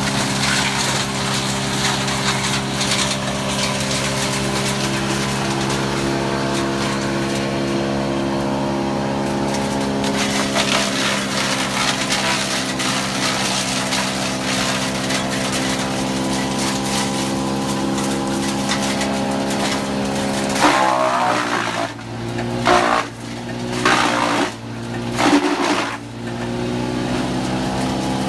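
Wood chipper's petrol engine running steadily while wood is fed through and chipped with a crackling, crunching noise. Near the end the engine dips under load and recovers several times, with loud cracks as the wood is chewed through.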